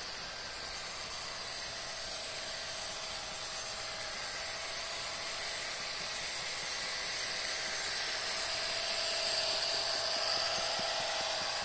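Sound-equipped HO scale model diesel locomotive with a coal train of hopper cars running past: a steady hiss with a high turbo whine that gets louder about two-thirds of the way in, as the rear distributed-power unit pushing the train comes closer.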